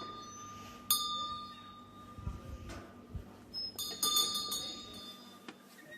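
A bell rings with bright metallic strikes: one about a second in, then a quick run of strikes around four seconds in, each note ringing on and fading.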